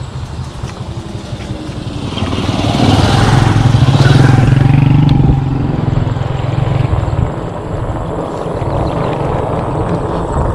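Wind rushing over the microphone with tyre rumble from an e-bike rolling along a rough concrete path. It grows louder from about two seconds in and eases off a little after five seconds.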